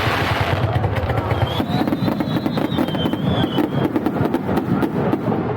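Fireworks going off in quick succession: a dense, continuous run of low booms with many sharp cracks. A high thin whistle runs from about a second and a half to four seconds in.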